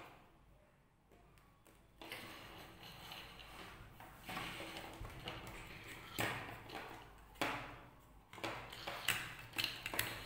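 Printed circuit boards with their bundled wires being handled on a wooden tabletop. From about two seconds in there is rustling and a run of light knocks and clicks, sharpest in the second half.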